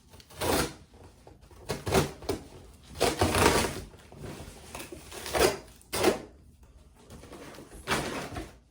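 A boxed ottoman piece and its cardboard being handled and flipped over: a series of about six scraping, rustling and bumping noises with short pauses between them.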